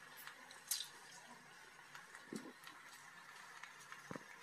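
Faint steady hiss from the pan of chicken cooking on the stove. There is one sharp click just under a second in and two soft knocks later on.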